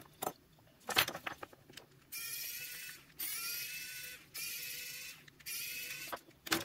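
Small cordless electric precision screwdriver (Wowstick) whining in four runs of about a second each, starting about two seconds in, as it backs screws out of a GPS dog collar; each run rises in pitch as the motor spins up. The footage plays at four times speed, which shortens the runs. A few light clicks of handling come about a second in.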